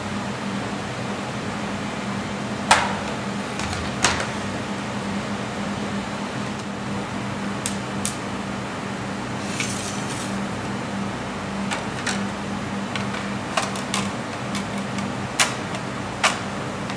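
Chocolate-moulding machinery running with a steady hum, with sharp clacks every second or few, the loudest two near the start.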